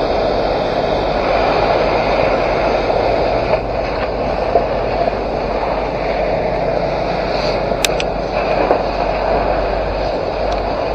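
Steady rushing noise over a low engine hum, with a few sharp clicks about eight seconds in and again near the end.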